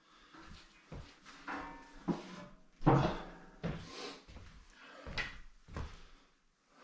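Irregular knocks, clunks and scraping from hands-on work in a wooden room, the loudest bump about three seconds in.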